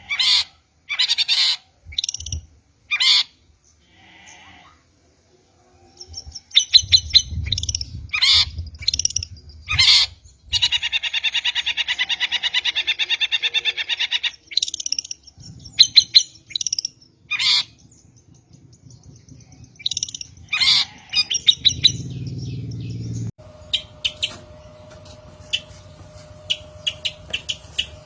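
Long-tailed shrike (cendet) giving repeated harsh, scolding calls, with one long, fast rattling chatter in the middle. About two-thirds of the way in, a steady hum comes in under fainter chirps.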